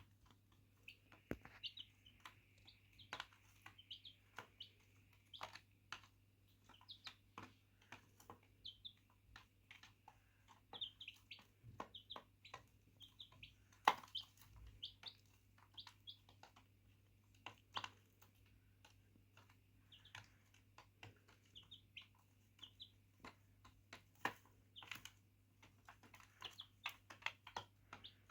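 Chicks peeping in short high chirps, with frequent sharp clicks and taps among them, the loudest tap about 14 seconds in.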